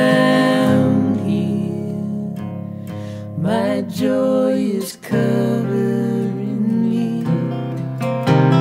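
Acoustic guitar music: a lead guitar plays a melodic line with sliding, bending notes over steady low sustained notes.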